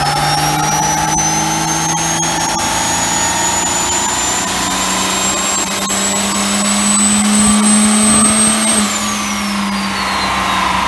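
Dodge Ram 3500's Cummins turbo-diesel pulled at full throttle on a chassis dyno, rolling coal. The engine note climbs steadily in pitch, with a high whine rising alongside it. About two seconds before the end the revs and the whine fall away as the throttle comes off.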